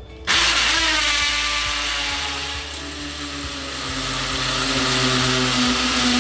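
Einhell 18 V cordless hammer drill boring through a steel drywall floor track into a ceramic tile floor. It starts about a third of a second in and runs continuously, its motor note sinking slightly in pitch under load.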